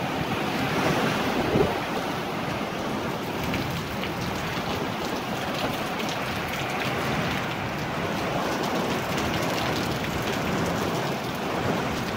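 Heavy downpour in a thunderstorm with strong wind: a steady, dense hiss of rain that holds even throughout.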